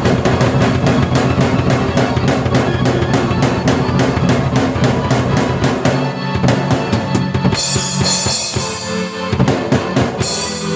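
Drum kit and keyboard played together by one player: a busy, even drum beat over sustained keyboard notes. About six seconds in it breaks into a sparser fill, with cymbal crashes ringing out twice near the end.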